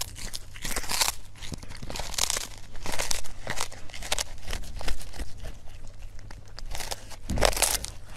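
A cat biting into and chewing a small whole fish, with irregular crunching and tearing noises and a louder burst of crunching near the end.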